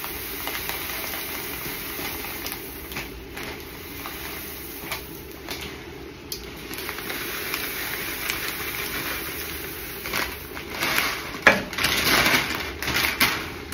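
Dried red lentils pouring from a plastic bag into a large stainless steel stockpot, a steady stream of small grains with many tiny clicks. Near the end the plastic bag crinkles in louder bursts as it is handled.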